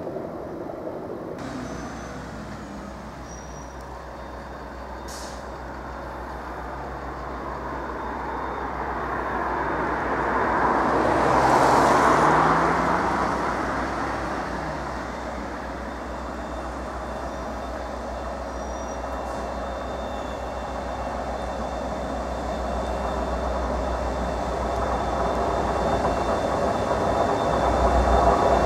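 A train passing through the station, its rumble swelling to a peak about twelve seconds in and then fading, over a steady low hum; the sound builds again near the end.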